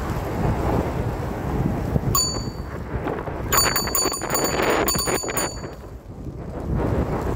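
Bicycle bell rung once about two seconds in, then rung quickly over and over for about two seconds, over wind on the microphone and the rumble of the moving bike.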